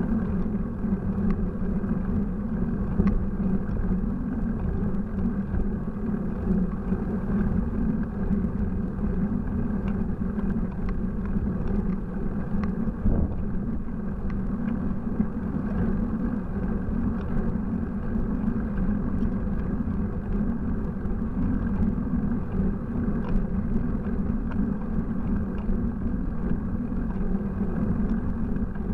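Steady wind and road rumble picked up by a bicycle-mounted camera while riding, a constant low noise with a few faint clicks.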